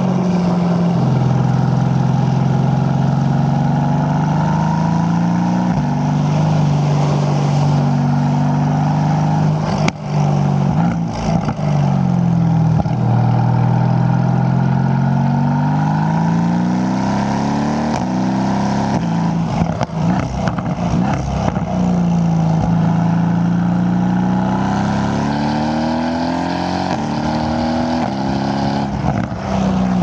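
2015 Mercedes-AMG GT's 4.0-litre twin-turbo V8 exhaust, heard from a microphone outside the boot while driving. The engine's pitch falls and climbs several times as the car slows and accelerates through the gears, with a sharp break in the sound about ten seconds in and a run of short crackles around twenty seconds in.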